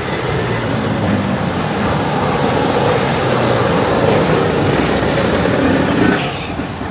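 Go-kart engines running loudly as karts pass along the track and pit lane. The engine note swells through the middle and falls away about six seconds in.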